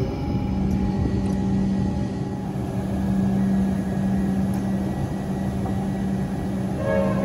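Comeng electric train standing at the platform, its onboard equipment giving a steady low hum over a constant rushing noise. A short electronic tone sounds near the end.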